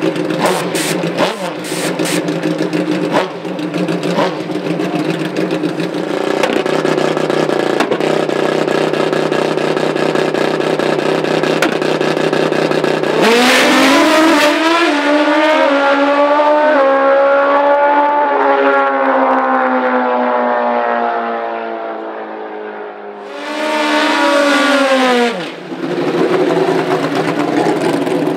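Pro Nitrous drag-racing motorcycles idling at the starting line, then launching about halfway through: the engines climb in pitch in steps through the gears as they run away down the strip and fade. Near the end there is a short second burst of hard revving, then engines idle again.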